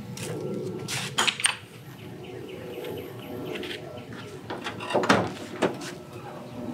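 Latches on a pickup truck's Leer cap window and tailgate being worked. There are sharp clicks about a second in as the cap's rear glass is unlatched and swung up. Near five seconds louder clicks and a clunk come as the Ford F-150's tailgate latch releases and the tailgate is let down.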